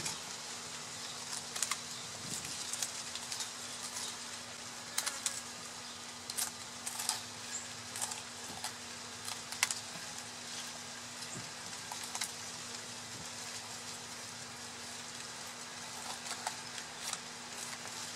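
Fillet knife working through a yellowtail snapper, making irregular small clicks and scrapes as the blade runs along the backbone and rib bones and touches the wooden board, over a steady faint hum.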